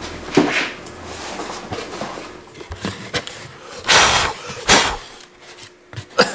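Cardboard box being handled and opened: a series of scuffs and scrapes as the cardboard flaps are pulled back, the loudest two about four seconds in.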